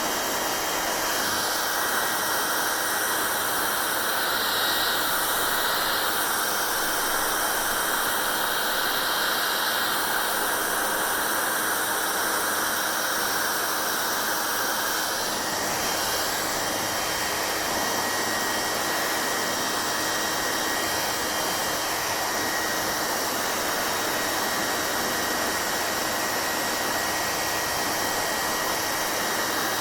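Hair dryer blowing steadily: an even rushing of air with a faint high whine, its tone shifting slightly about a second in and again around halfway.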